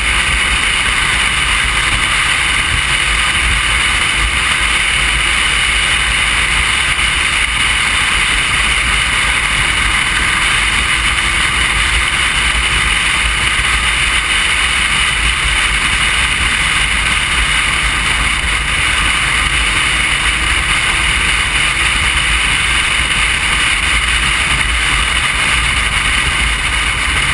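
Motorcycle cruising at steady road speed: a constant rush of wind over the microphone with the engine and road rumble running underneath, and the engine note rising and falling slightly now and then.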